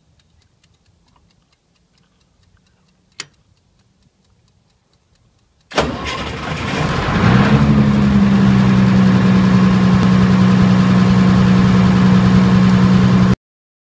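A 30 kW military diesel generator starting about six seconds in with a sudden loud burst, then settling within a couple of seconds into a steady run with a strong low hum, until the sound cuts off abruptly near the end. Before it, a wind-up kitchen timer ticks faintly, with one sharp click about three seconds in.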